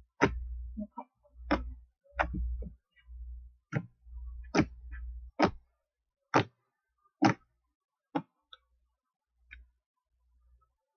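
Homemade frosty slime being squished and pressed by hand, giving a string of sharp pops and clicks about once a second over low dull handling thumps; the pops thin out near the end.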